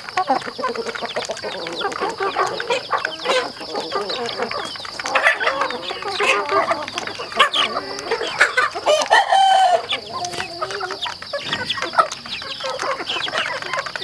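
A flock of young chickens clucking and calling as they feed, with many short clicks among the calls and a steady high-pitched tone underneath.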